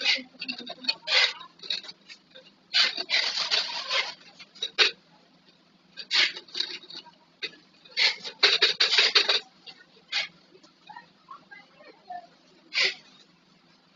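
Plastic flip-top bottles being handled, clattering and rubbing against each other in irregular bursts; the longest bursts come about three seconds in and again about eight to nine seconds in.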